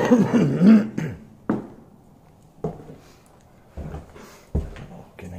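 A brief wordless vocal sound with a wavering pitch, then slow footsteps on a hard floor at about one step a second, one of them landing with a low thud.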